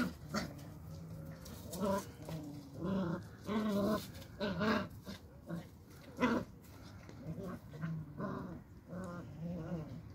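Beagle puppies play-growling in short repeated bursts as they wrestle.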